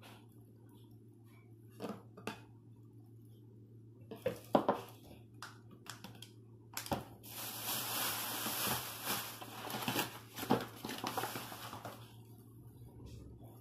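Light knocks and clinks of a glass jar and a plastic water bottle being handled and set down on a table, then a plastic shopping bag crinkling for several seconds as a bag of flour is pulled out, with a few more knocks.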